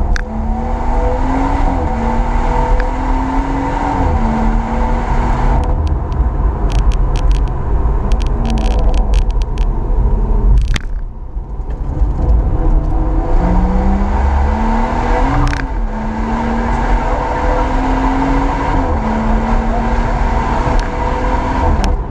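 BMW M140i's turbocharged 3.0-litre straight-six, JB4-tuned and running through a BCS valved exhaust, heard from inside the cabin on track. The engine note climbs under acceleration and drops back at each upshift, twice in the first four seconds and again from about thirteen seconds. A run of sharp crackles comes about six to ten seconds in, and the sound dips briefly around eleven seconds.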